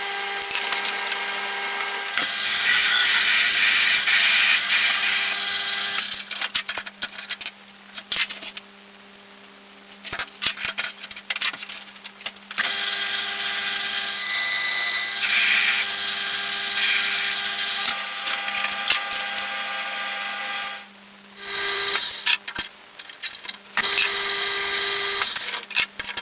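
Lathe running with a steady motor hum, while the cutting tool's scraping noise comes and goes in several stretches of a few seconds each as it engages and leaves the work.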